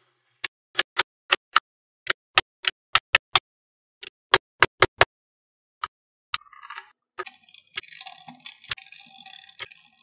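Small magnetic balls snapping onto one another with sharp clicks, a quick run of about sixteen in the first five seconds. From a little past six seconds comes a softer rattling and scraping of the balls shifting against each other, broken by a few more clicks.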